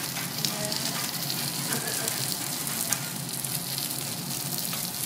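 Food sizzling on a hot teppanyaki iron griddle: a steady frying hiss peppered with many small crackles and pops.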